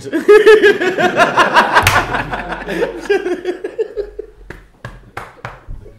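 Men laughing hard: a loud burst of rapid, pulsing laughter for about three seconds that then tails off into quieter snickers and a few short sharp sounds.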